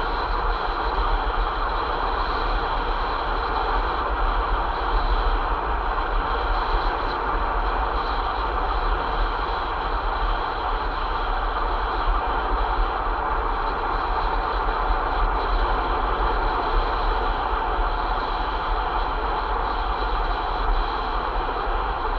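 Steady wind buffeting on the microphone of a moving vehicle, a deep rumble mixed with even road and tyre noise. There are no separate events.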